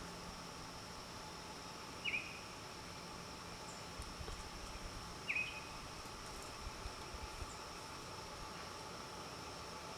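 Two short, sharp bird calls, each a quick downward slur, about three seconds apart, over a steady outdoor background with a constant high insect-like drone. A few soft low thumps come in the middle.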